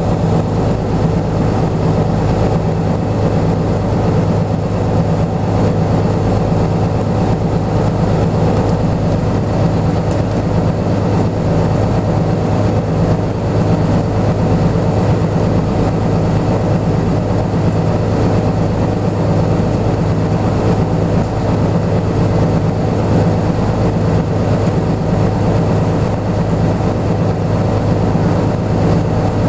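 Diesel engine of a 1999 Hino Blue Ribbon city bus (KC-HT2MMCA) idling steadily while the bus stands still, heard from inside the bus.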